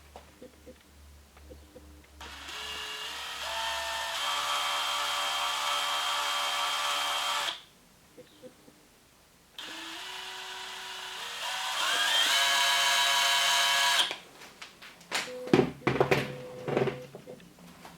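DeWalt DCD790 18V brushless cordless drill running twice with no load, its whine climbing in steps as the trigger is squeezed further, each run several seconds long. A few sharp clicks and knocks follow near the end.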